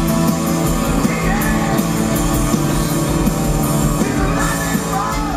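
Loud rock music: a band playing, with singing over guitars and drums.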